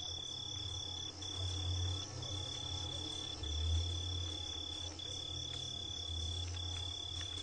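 Insects trilling: one steady high trill broken by short gaps every second or so, with a faster pulsing chorus above it and a low hum underneath.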